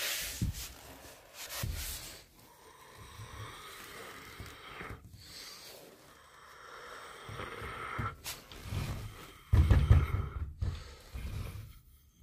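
Rustling and bumping noise from a phone being handled and moved close to its microphone, irregular throughout, with a louder low thumping about ten seconds in.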